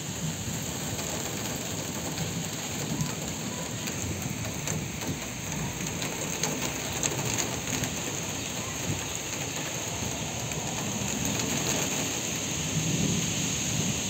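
Steady rain falling, with many drops tapping, while gusts of wind blow through the trees. A low rumble swells near the end.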